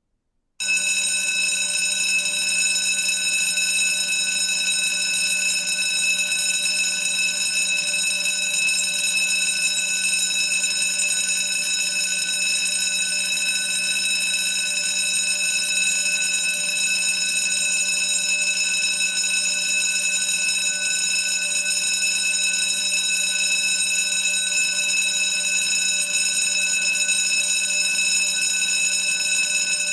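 School bell ringing in one long unbroken ring that starts about half a second in.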